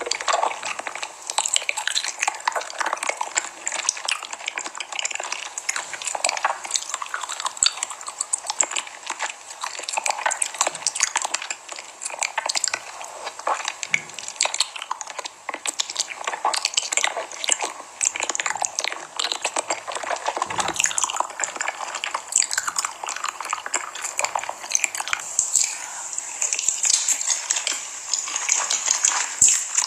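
Close-miked eating: food being bitten and chewed in the mouth, a dense, continuous run of small crackles and clicks.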